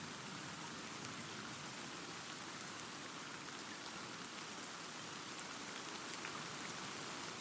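Steady rain falling, an even hiss with fine drop ticks and a soft low rumble beneath it.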